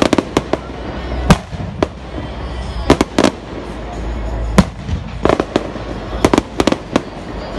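Fireworks display: aerial shells bursting, about fifteen sharp bangs coming unevenly, several in quick clusters, over a steady low rumble.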